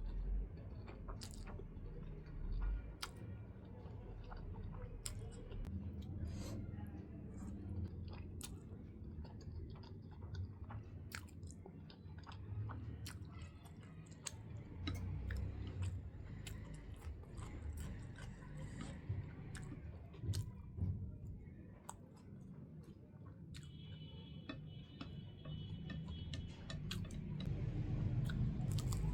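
A person chewing food, with many short, sharp mouth clicks and smacks scattered through it; the chewing grows louder near the end.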